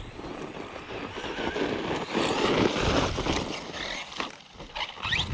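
Redcat Kaiju EXT electric RC truck running across sand and dirt, its motor and tyres getting louder to a peak about two to three seconds in, then dropping away suddenly. A few short scuffs and chirps follow near the end.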